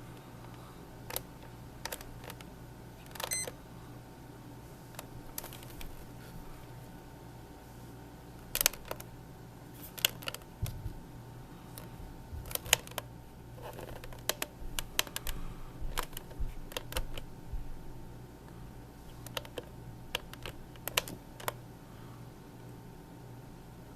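Plastic buttons on a Mattel Barbie Wake with Me clock radio clicking as the alarm time is reset: irregular single clicks and short runs of clicks, over a steady low hum.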